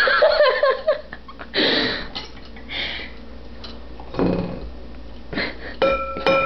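Girls giggling: a pitched laugh at the start, then short breathy bursts of laughter.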